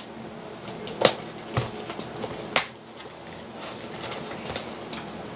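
A cardboard box being handled and opened, with a few sharp knocks about one, one and a half and two and a half seconds in, followed by lighter scraping and tapping.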